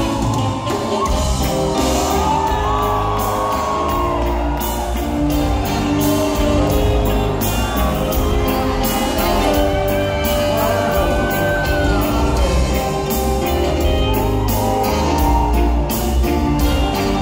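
Live reggae band playing loud through a hall PA: electric guitars, bass and a drum kit keeping a steady beat, with a lead line gliding above. Audience voices shout and whoop over the music.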